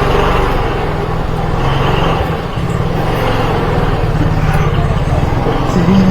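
Motorcycle running along the road, its engine and road noise picked up close by an action-camera microphone. Near the end a man's voice starts a wavering sung tune over it.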